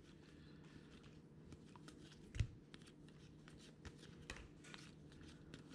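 Topps baseball trading cards being handled and flipped through: faint, scattered clicks and light slaps of card stock, with one louder tap about two and a half seconds in, over a low steady hum.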